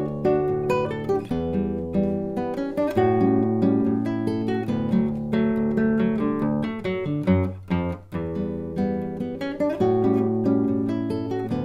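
Solo acoustic guitar playing a fingerpicked piece: a steady run of plucked melody notes over a moving bass line, with a brief drop in loudness about eight seconds in.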